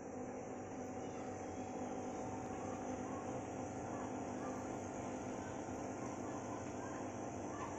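Steady electric hum of an aquarium air pump driving a sponge filter, with a few faint short chirps over it.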